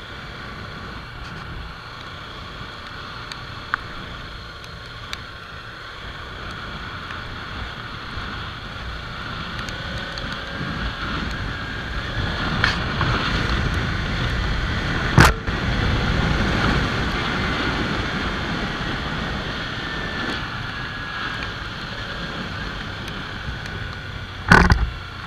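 Kawasaki Ninja 300's parallel-twin engine running under way, with wind rushing over the microphone. The noise builds from about ten seconds in and eases off toward the end. Two sharp knocks cut through, one around the middle and a louder one near the end.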